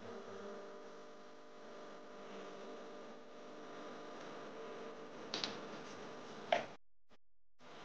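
Steady background hum, with a metal spoon stirring water in an aluminium pot and knocking sharply against the pot twice, a second apart, near the end. The sound then cuts out briefly.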